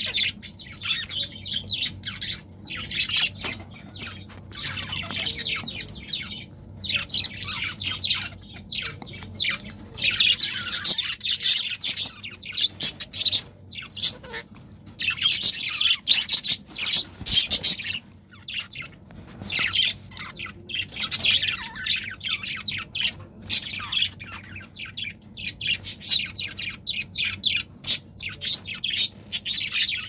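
Budgerigars chattering and warbling, a busy stream of quick chirps and clicks that comes in bursts with short pauses.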